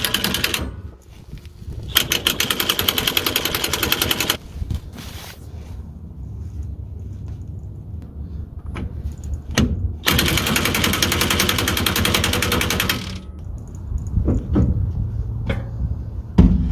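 Impact wrench hammering in three bursts as it tightens the pinion nut on a Ford 8.8 rear axle: a short burst at the start, one of about two seconds a couple of seconds in, and one of about three seconds past the middle. The nut is being run down toward a paint mark to set it back where it was. A few single metal clicks fall between the bursts.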